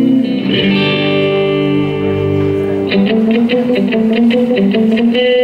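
Hollow-body electric guitar playing a rockabilly song intro: ringing held chords, then from about three seconds in short choppy chord strokes at about four to five a second.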